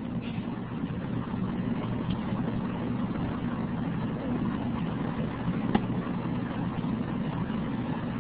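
Steady low hum and hiss of an open conference-call audio line while nobody speaks, with a faint click about six seconds in.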